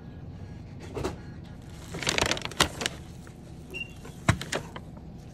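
Brown paper shopping bag rustling and crinkling as it is handled at a checkout, with several sharp knocks. One short beep from a handheld barcode scanner comes a little past the middle, just before the loudest knock.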